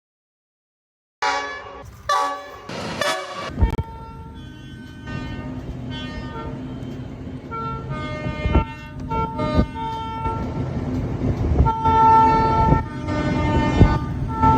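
Train horn: three short, loud blasts after a second of silence, then a train running with a steady rumble while its multi-note horn sounds again and again, the longest blast about twelve seconds in. A few sharp knocks sound among the rumble.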